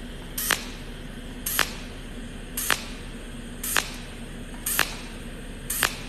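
Cold welding machine firing its tungsten-electrode arc in pulses on stainless steel: a sharp snap about once a second, six in a row at an even pace, each one a new spot weld, over a steady low hum.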